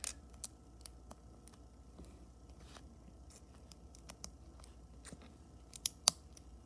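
Small plastic Lego pieces clicking as they are handled and pressed together: a scattered string of light clicks, with two sharper snaps shortly before the end.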